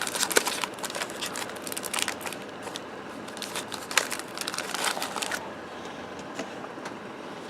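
Crinkling and crackling of a trading-card pack wrapper as the cards are handled, with many sharp little clicks that die down about five and a half seconds in.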